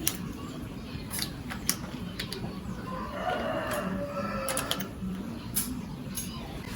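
A rooster crowing once, a long call that falls in pitch about three seconds in, with scattered sharp clicks around it.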